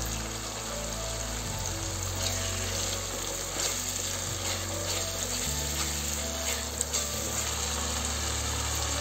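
Onion-tomato masala paste sizzling as it fries in hot oil in a pan, with a few scrapes of a wooden spatula stirring it.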